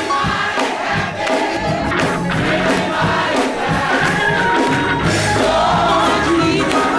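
A church congregation singing together over instrumental accompaniment, many voices at once.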